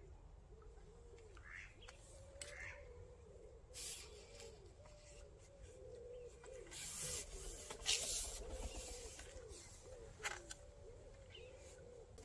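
Pigeons cooing in a steady run of short, low, repeated notes, with a few brief higher bird chirps early on. Several short bursts of rustling noise break in, the loudest about eight seconds in.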